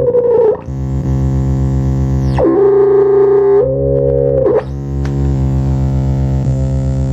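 Eurorack modular synthesizer patch playing a buzzy electronic drone: a fast low pulsing runs under held pitched tones. The upper sound switches between a bright, hissy texture and a plainer mid tone that steps up in pitch, with a quick downward swoop a little past halfway.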